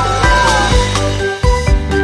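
Background music: an upbeat electronic tune with a steady beat and bright melody notes.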